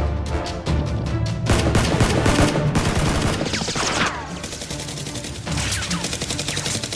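Rapid bursts of gunfire over background music with a heavy bass, the shots thickest in the first few seconds, thinning out, then picking up again near the end.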